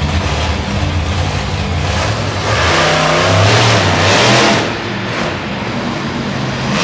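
Monster truck engine revving hard: it runs steadily at first, then climbs in pitch and grows louder from about two and a half seconds in, and drops away sharply just past four and a half seconds.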